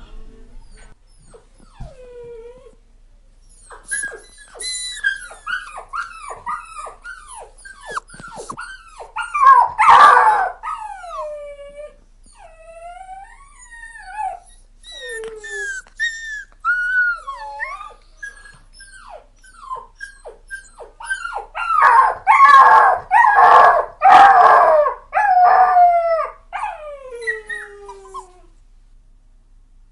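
A dog whining and crying: a long run of short high whines that slide down in pitch, with two louder spells of howling cries, one about a third of the way in and one in the last third.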